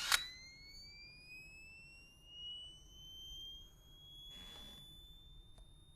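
A camera's electronic flash recharging just after firing: a thin, high whine that rises slowly and steadily in pitch. A brief soft hiss comes about four and a half seconds in.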